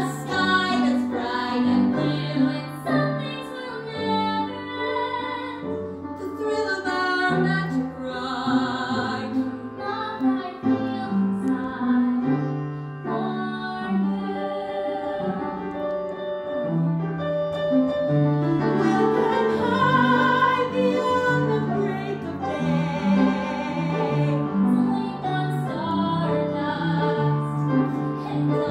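A woman singing a musical theatre ballad with a wavering vibrato, over instrumental accompaniment with sustained low notes.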